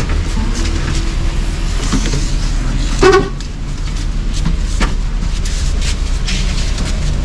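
Mercedes-Benz OH 1526 coach under way: a steady low engine and road rumble with rattling clicks, and one short, loud horn toot about three seconds in.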